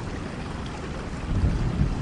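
Steady rain with a low rumble of distant thunder underneath, which swells louder a little over halfway through.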